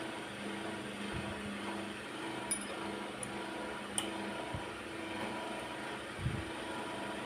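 A steady mechanical hum with light metallic clinks, about 2.5 and 4 seconds in, and a few dull knocks.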